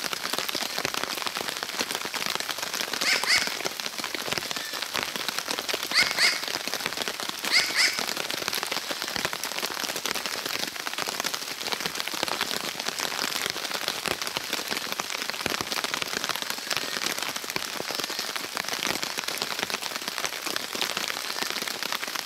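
Steady rain falling on the forest leaves, with a New Caledonian crow giving three typical "wak-wak" double contact calls, about three, six and seven and a half seconds in.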